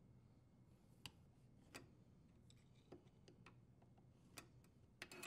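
Faint, irregular clicks and ticks, about half a dozen, as a dishwasher's front leveling leg is turned by hand to extend it.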